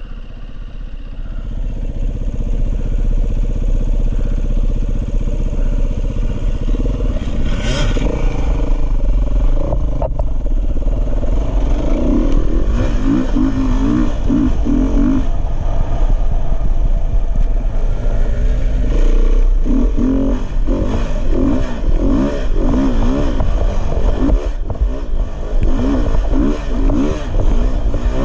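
Dirt bike engine heard from the bike itself while riding, building up over the first couple of seconds and then rising and falling in pitch as the throttle is worked and gears change. A heavy low rumble of wind on the microphone runs underneath.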